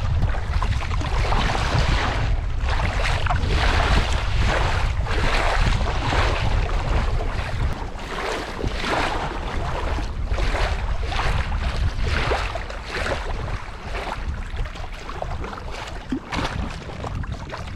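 Kayak paddle strokes swishing and splashing in the water about once a second, over a heavy rumble of wind buffeting the microphone.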